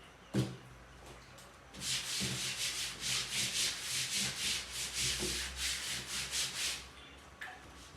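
Brisk back-and-forth scrubbing of a hard surface, about three strokes a second for some five seconds, after a single knock near the start.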